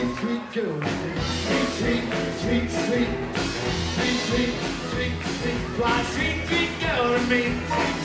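Live rockabilly band playing an up-tempo number: upright bass, drum kit, electric guitar and acoustic guitar, with a steady beat.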